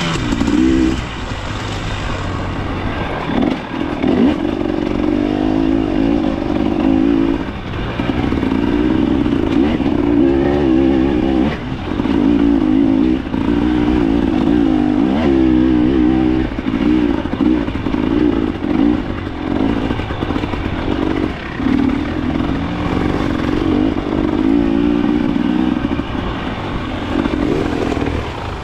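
Off-road motorcycle engine revving up and down again and again as it is ridden hard over a rough climb, with some clatter from the bike.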